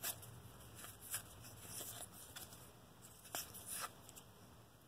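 1991 Traks trading cards being flipped through by hand: faint slides of card stock with a few soft clicks.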